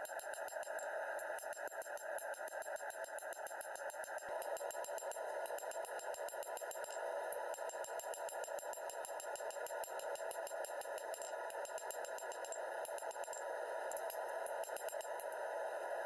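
Hand hammering of a hot 1070 steel sword blade on an anvil, heard as a fast, even patter of light clicks over a steady hiss rather than separate ringing blows.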